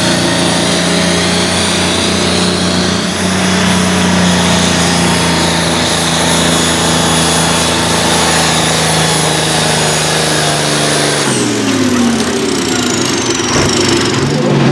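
Pulling tractor's diesel engine held flat out under heavy load through its straight upright exhaust stack: a steady hard-running note with a thin high whine above it. About eleven seconds in the revs drop away, and the engine runs lower and rougher, with a single knock near the end.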